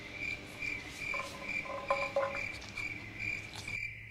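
A cricket chirping steadily, about two to three chirps a second at one pitch. Steel dog bowls clink lightly a couple of times about two seconds in.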